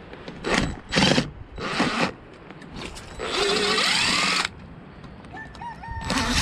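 Cordless DeWalt 20V MAX impact driver backing screws out of the boat's teak trim. It comes in a few short trigger bursts, then one run of over a second that climbs in pitch, and another short burst at the end.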